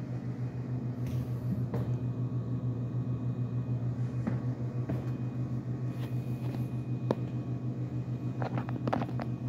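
A steady low mechanical hum with a fast, even pulse, with a few faint clicks over it.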